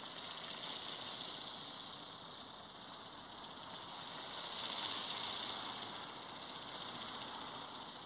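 High electric-motor whine of a small remote-controlled flying model passing overhead. It swells to its loudest about five seconds in, then fades a little as the model moves away.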